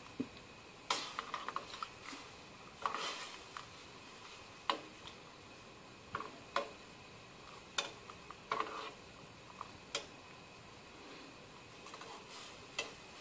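Metal spoon stirring diced orange peel in water in a saucepan, knocking against the pan in about a dozen irregular clinks and taps. The water is heating but not yet boiling.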